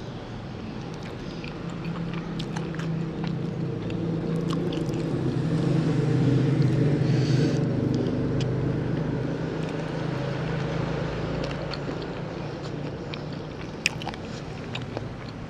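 A steady low motor hum that swells to its loudest about halfway through and then slowly fades, with scattered light clicks and taps over it.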